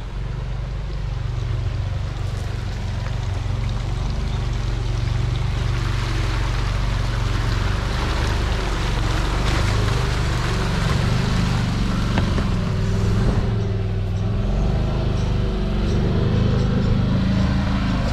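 Side-by-side buggy's engine running as it drives through a rocky creek crossing, with water rushing and splashing around it. The sound grows gradually louder as the buggy comes closer.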